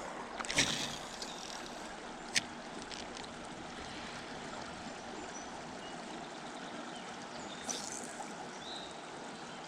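River water running steadily, with a few faint clicks and rustles: one burst about half a second in, a single sharp click a couple of seconds in, and a faint rustle near the end.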